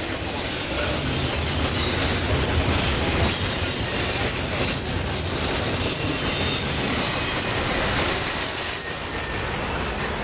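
Double-stack intermodal well cars of a freight train rolling past, a steady rumble of wheels on rail with a high wheel squeal over it. The noise drops off near the end as the last car goes by.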